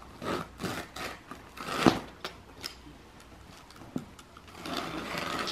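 Utility knife cutting through carpet in several short scratchy strokes, loudest about two seconds in, then a longer continuous cut near the end.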